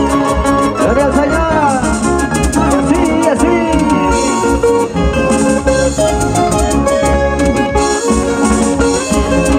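Dance music from a band, loud and continuous, with a steady percussive beat under a melody line.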